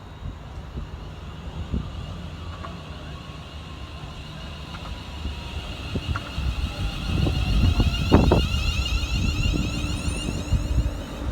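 A train running through the station: a low rumble with a high whine, growing louder to a peak about eight seconds in, where there are a couple of sharp knocks.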